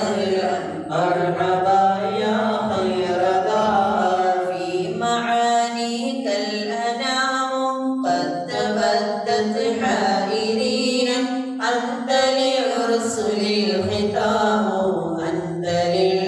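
Mawlid recitation: men's voices chanting Arabic devotional verses in a sustained melodic line, with no instruments.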